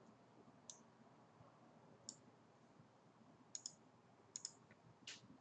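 Faint computer mouse clicks, about seven spread out with two quick pairs, over faint room hiss.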